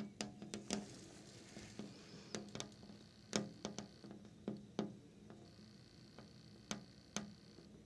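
Long fingernails tapping on a window: irregular sharp clicks, a quick run of taps in the first second, then single and paired taps spaced out.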